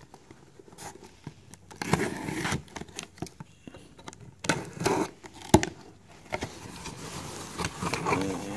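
Pocket knife slitting packing tape on a cardboard box: irregular scraping strokes of the blade through tape and cardboard, with sharp clicks and taps. Near the end the cardboard flaps are pulled open.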